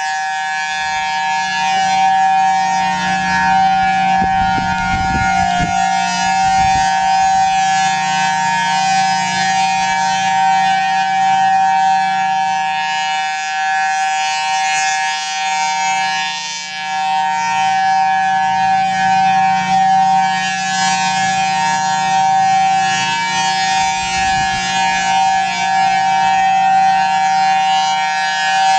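Federal Signal Thunderbolt 1003 outdoor warning siren sounding during its monthly test: a steady high siren tone with a low hum beneath it, dipping briefly in loudness about halfway through.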